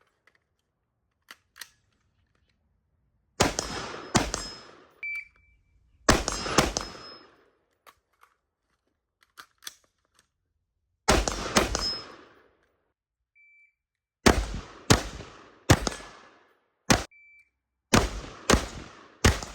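AR-15 rifle in 5.56/.223 firing about a dozen single shots, each with a short echoing tail. The shots come in pairs at first and then in a quicker string about 0.6 s apart near the end. A brief high ring follows a few of the shots.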